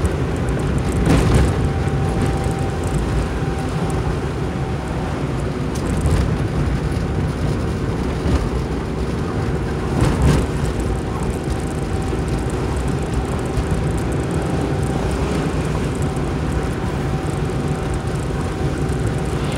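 Steady engine and road noise heard from inside a moving car's cabin, with a few brief knocks: about a second in, around six seconds and around ten seconds.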